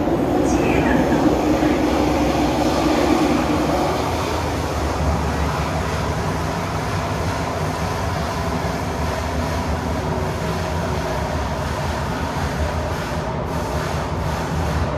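Inside a Thomson-East Coast Line metro train running through its tunnel: a steady rumble and hiss of the train in motion, with a faint steady whine. It is a little louder in the first few seconds, then settles.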